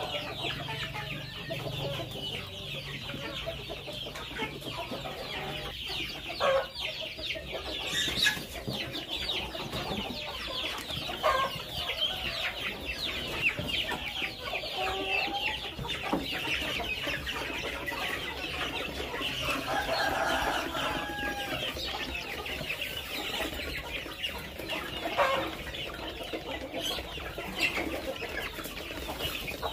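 A flock of two-month-old chickens peeping and clucking continuously, many birds at once, with a louder single call now and then.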